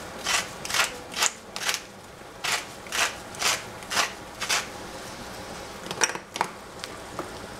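A spice dispenser, salt or pepper, is worked in about ten quick crisp strokes, roughly two a second, with a short pause about two seconds in. A few sharp clicks follow near the end.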